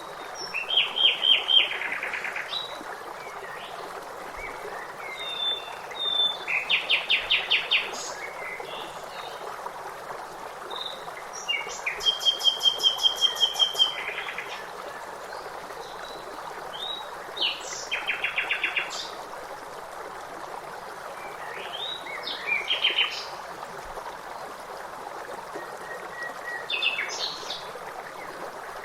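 Songbirds singing short, fast trilled phrases every few seconds, each a second or two long, over a steady rush of flowing water.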